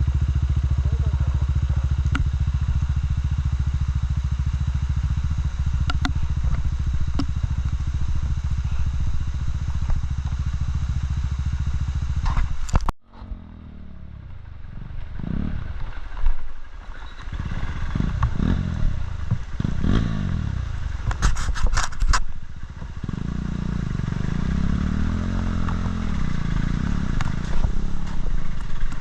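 Motorcycle engine running steadily. After a sudden break about halfway, it is revved up and down several times, then settles back to a steady run.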